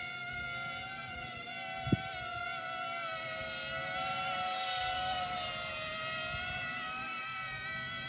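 Motor and propeller of a giant wasp-shaped remote-control model aircraft droning in flight, its pitch wavering slightly, growing louder toward the middle and easing off after. One sharp thump comes about two seconds in.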